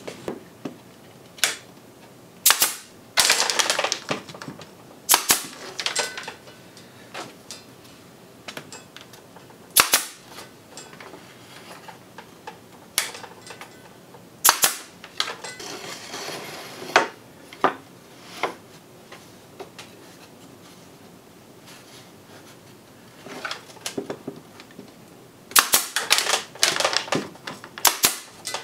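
Pneumatic pin nailer firing pins into the mitred corners of a wooden picture frame: single sharp pops at irregular intervals, with a quick run of several shots near the end.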